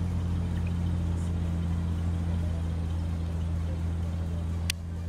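Diesel engine of a Ford Cargo truck running at low revs, a steady low drone that holds one pitch. A single sharp click near the end.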